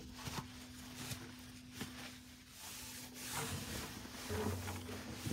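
Soft, irregular rustling of paper small-pet bedding, Carefresh and Kaytee Clean & Cozy, being mixed and spread in a hamster cage, over a faint steady hum.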